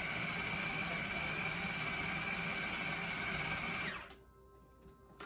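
Food processor motor running steadily with a high whine as it grinds beef and pork, then stopping about four seconds in.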